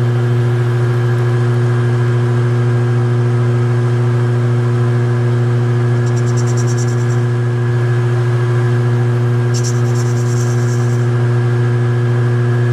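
Lathe motor running at a steady speed with a constant low hum. Faint rapid ticking comes in briefly about halfway through and again a few seconds later.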